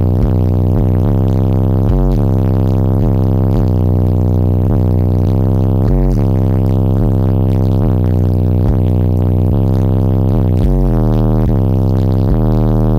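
Loud, bass-heavy music played through a car audio system of four Resilient Sounds Platinum 15-inch subwoofers, run at 0.5 ohm on four Bass 8k amplifiers and heard inside the car. Long, deep bass notes shift about once a second.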